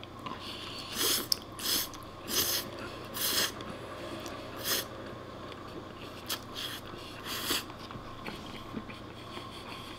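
A man slurping spaghetti: about seven short, hissing slurps, spread over the first three quarters.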